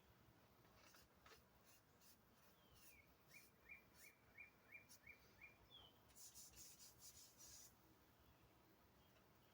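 Near silence with a bird faintly chirping: a short falling call, then a run of about seven quick chirps, roughly three a second, and one more a little later. Faint scratchy rubbing sounds come and go around the calls.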